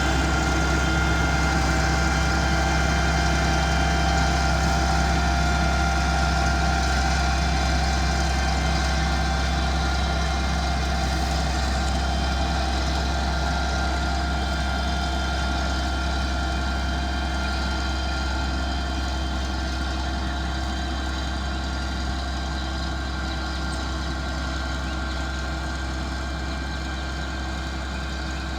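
Motor grader's diesel engine running steadily, a low drone with a whine on top, slowly getting quieter toward the end.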